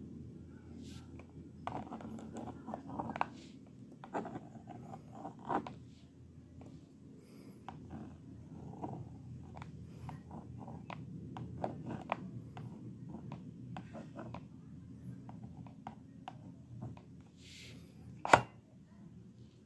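Plastic stylus tapping and scratching across the honeycomb screen of a children's magnetic drawing board, in an uneven run of short clicks and scrapes, with one sharp louder click near the end.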